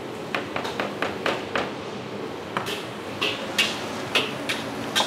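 A metal spatula clanking against a steel wok while stir-frying fried rice, in sharp irregular strikes about two or three a second, over a steady background hiss.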